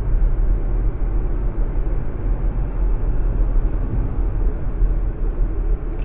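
Steady road and engine noise inside a car cabin at highway speed: a constant low rumble with tyre hiss above it.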